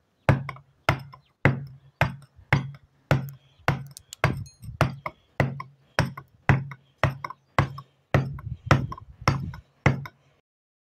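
Mallet driving a hand chisel into a stone relief slab: a steady run of about eighteen sharp knocks, roughly two blows a second, each with a short low ring. The blows stop shortly before the end.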